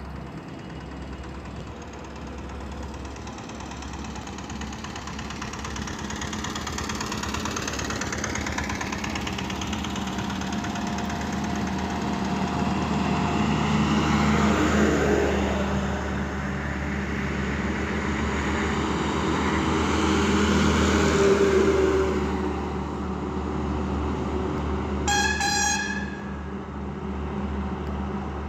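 Heavy diesel six-wheel tipper truck driving past close by, its engine and tyre noise building to a peak about halfway through, with a second heavy vehicle passing a few seconds later. A short vehicle horn toot sounds near the end.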